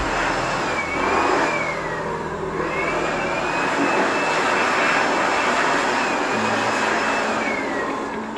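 Electric orbital sander running while pressed against plywood, a steady grinding noise with a motor whine that dips and rises as the load on the pad changes.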